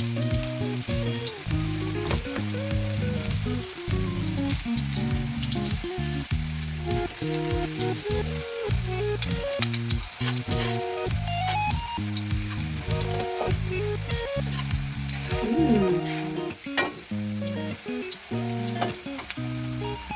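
Squash fries deep-frying in hot oil, a steady sizzle with fine crackles, under background music.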